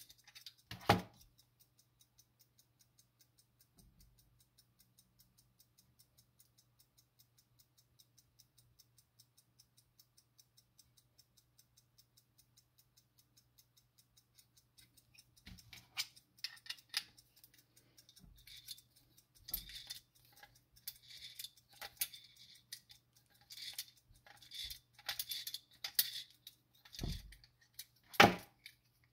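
Platform escapement of a Soviet 1-77 marine wall clock movement ticking quickly and evenly as its balance runs after winding. From about halfway through, irregular metal clicks and knocks from handling the movement join in, with two louder knocks near the end.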